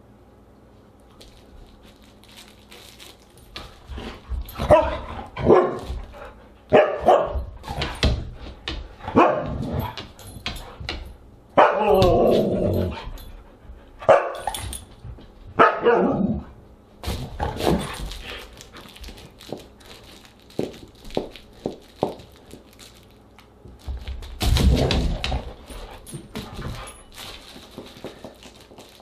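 Siberian husky barking and vocalizing in a run of short pitched calls, with a longer call about twelve seconds in that bends in pitch, and one more call near the end. Light ticks sound between the calls.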